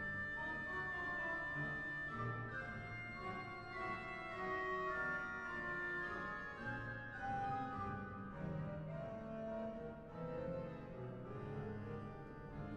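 Organ music playing a slow melody of held notes.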